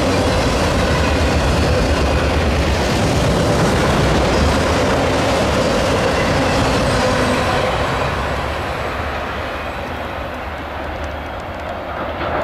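Freight train cars rolling past close by: a steady rumble and clatter of steel wheels on rail, which begins to fade about two-thirds of the way through.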